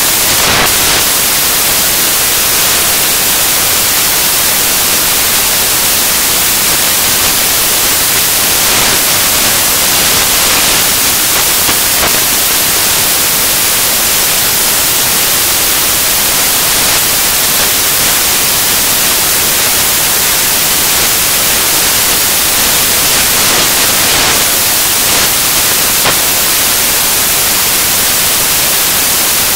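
Loud, steady hiss of static-like white noise, strongest in the treble, with no other sound standing out.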